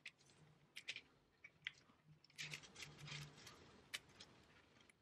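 Faint crackling and light clicks of an adhesive LED light strip being handled and pressed onto a headboard panel, busiest around the middle.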